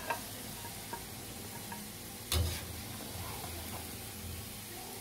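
Potato fries sizzling in hot oil in a kadai, with a metal slotted spoon clicking against the pan and one louder knock a little past two seconds.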